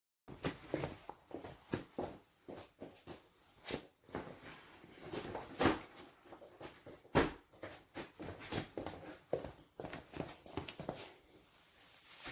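Irregular clicks and knocks, several a second, that start abruptly after a moment of dead silence, like small hard objects being handled.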